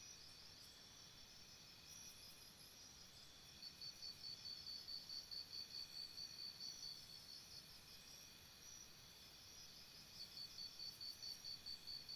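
Faint chorus of crickets. One high-pitched cricket chirps in quick, even pulses, starting about three and a half seconds in, stopping around seven seconds, and resuming near the end. Fainter crickets keep up steady trills at other pitches throughout.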